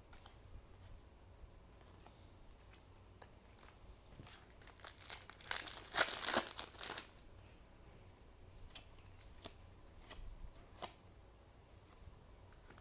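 A foil trading-card booster pack torn open and its wrapper crinkled, loudest for about two seconds in the middle, with a few light clicks afterwards.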